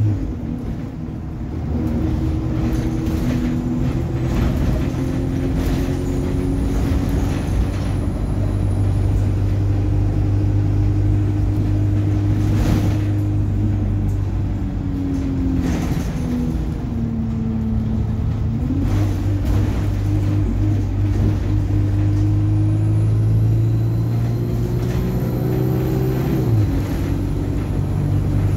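ADL Enviro 200 single-deck bus's diesel engine and drivetrain running on the move, the engine note dipping and rising as the bus changes speed. A high whine climbs from a little past two-thirds of the way in and drops away sharply with the engine note near the end, with a brief burst of hiss about halfway through.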